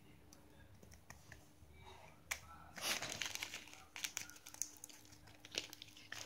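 A homemade folded-paper blind box packet crinkling and rustling as it is handled and opened by hand, loudest about three seconds in.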